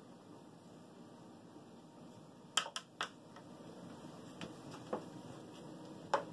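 A few light, sharp clicks and taps over a quiet room background, three close together about halfway through and a few single ones later, as a monkey moves about a bathroom counter and takes hold of a plastic hairbrush.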